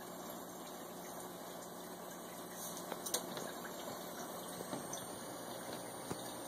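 Steady bubbling and water noise from an aquarium's air bubble stream, with a few light knocks about halfway through.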